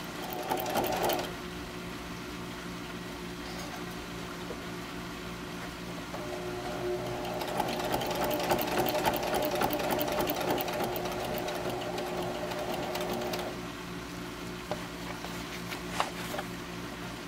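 Sewing machine stitching vinyl: a short run about a second in, then a longer run of rapid stitching for several seconds in the middle, with a steady hum throughout and a single click near the end.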